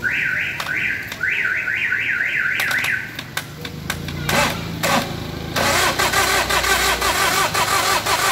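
Starter motor cranking a Daihatsu Charade turbo-diesel engine, its whine rising and dropping about three times a second with each compression. Then a few sharp knocks, and a loud rushing noise for the last few seconds that cuts off suddenly near the end.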